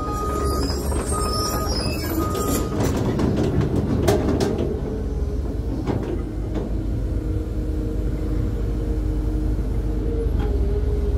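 Caterpillar 320 hydraulic excavator's diesel engine running steadily while the bucket trims a soil slope, with scattered clicks and scrapes of soil and stones against the bucket through the middle. Three short high beeps sound in the first couple of seconds.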